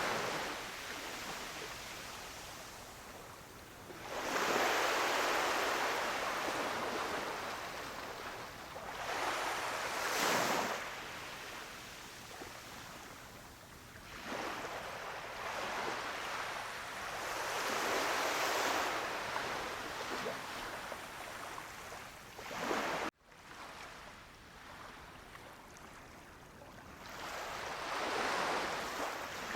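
Surf washing onto a beach: waves swell and break, then hiss back down, one every several seconds. The sound cuts out abruptly for an instant about two-thirds of the way through, then resumes softer.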